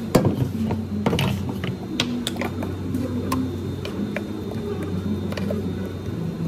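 Irregular clicks and knocks of a wooden spatula scraping and tapping inside a plastic blender jar while thick strawberry smoothie is poured out into a plastic cup, over a steady low hum.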